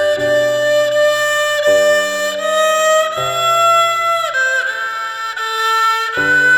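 Background music: a melody of long held notes, violin-like, over a low sustained accompaniment, the notes changing every second or so.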